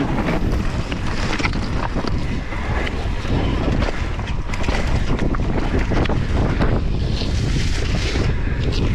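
Wind rushing over the microphone as a mountain bike descends at speed, with a constant rattle and clatter of tyres, chain and frame over rocky dirt.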